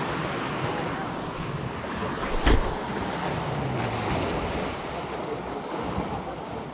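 Sea water washing against a rocky shore, with wind buffeting the microphone. A single sharp knock sounds about two and a half seconds in.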